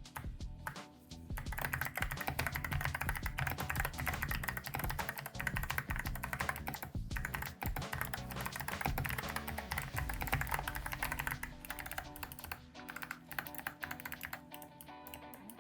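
Typing on an Ajazz AK650 mechanical keyboard fitted with Kailh Box Arctic Fox clicky switches: a fast, dense stream of sharp clicks that starts about a second and a half in and thins out near the end.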